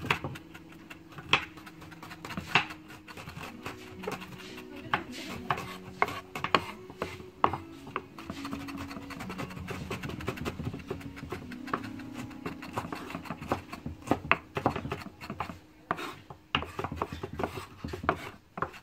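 Chef's knife mincing shallots on a wooden cutting board: quick, uneven taps of the blade on the wood, with the knife rocking and scraping through the pieces.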